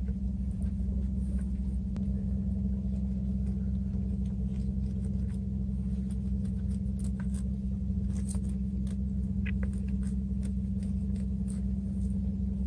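A steady low machine hum, with faint scattered clicks and scrapes of a knife filleting a fish on a plastic cutting board.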